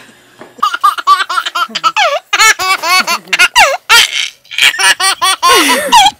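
A baby laughing hard in a long run of short, high-pitched bursts, starting about half a second in and going on with only brief pauses.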